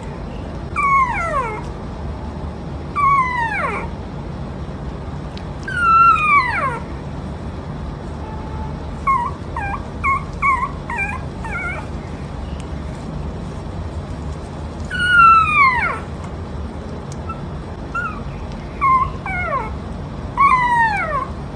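A puppy whimpering in its sleep: a string of high whines that slide steeply down in pitch, with bursts of short, quick yips in the middle and again near the end.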